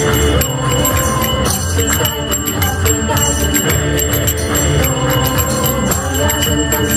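Music with a steady low drum beat and jingling percussion under a sustained melody.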